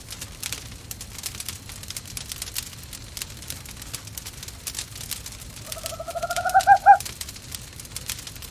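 Wood fire crackling with sparse pops throughout. Near the end, a single owl call rises in pitch and grows louder over about a second, wavering as it goes, then stops abruptly.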